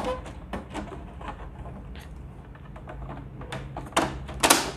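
Hard plastic clicks and knocks from a Daikin MC55UVM6 air purifier's casing being handled as its filters are refitted, with two louder, brief noises near the end.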